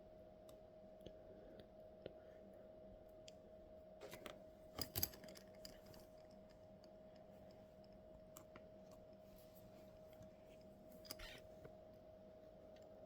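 Near silence with a faint steady hum, broken by scattered small clicks and taps, loudest in a quick cluster about five seconds in and another short one near eleven seconds.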